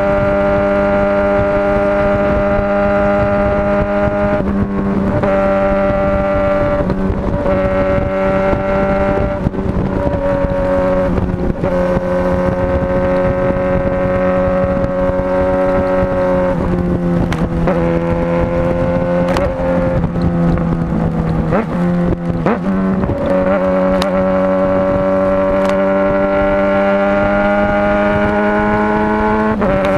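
Motorcycle engine running while riding, a steady drone that holds its pitch, with several brief breaks where the pitch dips and then settles at a new level.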